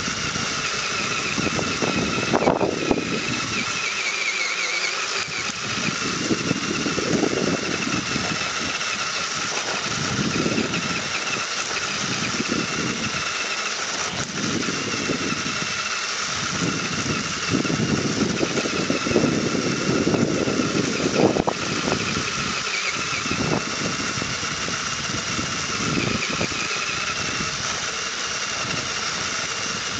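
Whine of an HPI RC crawler's electric motor and gearbox, a steady high pitch that wavers a little as the throttle changes, under irregular rumbling surges.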